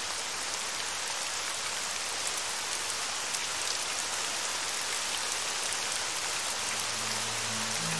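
Steady, heavy rain falling, with scattered drops ticking through it. A low droning tone comes in near the end.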